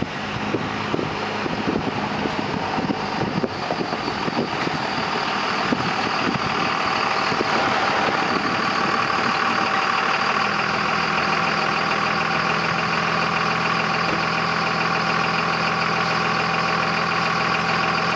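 1999 Dodge Ram's 24-valve Cummins diesel running as the truck approaches over gravel, growing louder, with crackling from the tyres on the stones. About ten seconds in it stops and settles into a steady diesel idle.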